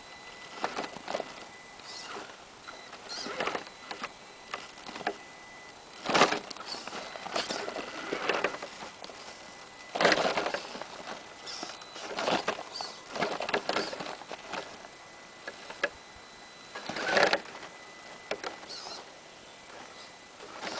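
Radio-controlled rock crawler truck climbing over rocks: its electric drivetrain whirs in short bursts while the tyres scrabble and scrape on stone, with a few louder bursts spread through.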